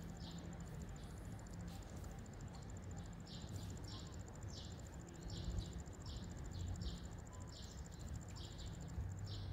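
Insects chirping: a steady, high-pitched trill with short chirps repeating about once or twice a second, over a low steady hum.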